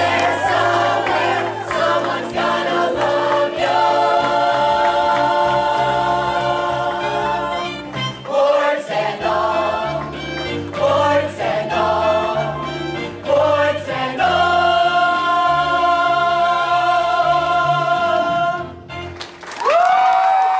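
A musical-theatre chorus singing over instrumental accompaniment. Long held notes are broken by shorter phrases in the middle, and it ends on a final held note near the end.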